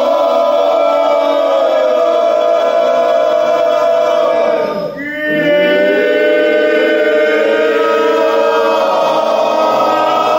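A group of voices chanting a Norse galdr together in long held tones. About halfway through the sound dips briefly as they take a breath, then the voices come straight back in.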